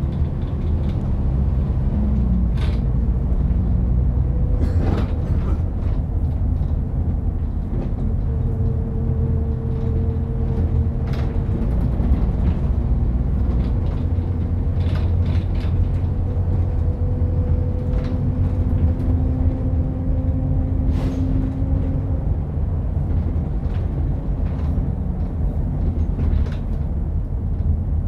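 Interior noise of a moving bus: a steady low rumble from engine and road, with a faint whine that slowly shifts in pitch and scattered clicks and knocks from the cabin.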